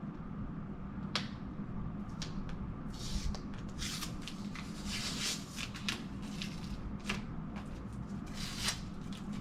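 Hands working open comic book mailer packaging: scraping and rustling with scattered clicks, busiest from about three seconds in to near the end.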